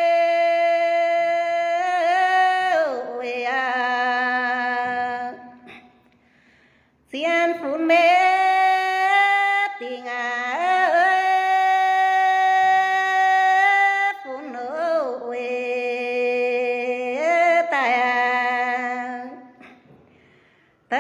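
A woman singing a Red Dao lượn folk song unaccompanied, long held notes with a slight waver, in three phrases with brief pauses between them.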